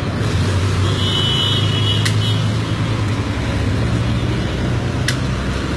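Street traffic noise: a steady low rumble of passing vehicles, with a brief high tone about a second in and two sharp clicks, one about two seconds in and one near the end.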